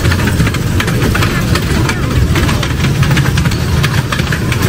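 Engine-driven machinery running loudly with a rapid, steady clatter, cutting off suddenly at the end.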